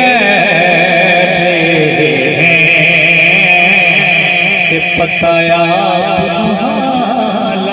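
Male naat reciter singing long, wavering melismatic notes into a microphone, over a steady low drone.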